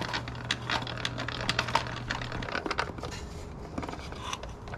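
Quick irregular metal clicks and rattles of a Porter Cable table saw's blade-height mechanism being worked down by hand, binding against its newly hooked spring. A low steady hum stops about halfway through.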